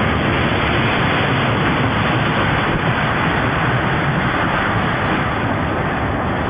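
Roller coaster ride noise: a steady, loud rush of wind over the microphone mixed with the rumble of the cars on the track.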